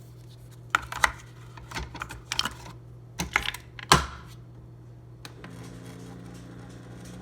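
A few irregular sharp clicks and knocks, like handling or tapping on hard objects, bunched in the first four seconds, then one more click; under them a steady low hum.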